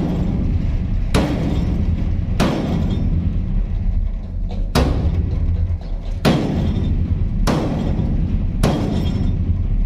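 A long-handled sledgehammer striking the steel of an accident-damaged shipping container: six heavy blows, roughly a second apart with one longer pause, as the dented steel is beaten back into shape. A steady low rumble runs underneath.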